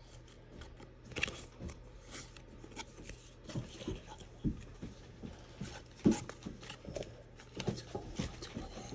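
Football trading cards being flipped through by hand: irregular soft ticks and brief rustles as card edges slide and snap against one another, with one sharper tick about six seconds in.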